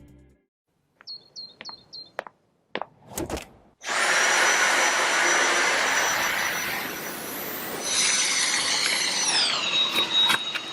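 Dyson V8 cordless stick vacuum cleaner: a few clicks, then the motor starts about four seconds in and runs loudly with a high whine. Near the end the whine drops in pitch and then holds steady.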